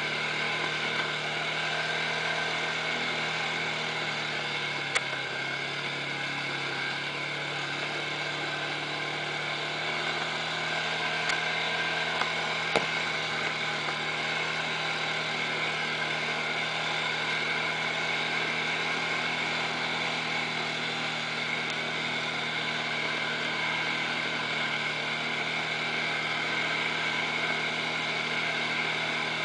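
ATV engine running steadily at trail speed, a constant drone with a whine above it, its pitch dipping slightly a few seconds in. A few sharp clicks come through, about 5, 11 and 13 seconds in.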